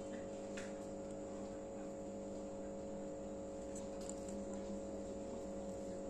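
Steady electrical mains hum with a few faint clicks, one about half a second in and two close together about four seconds in.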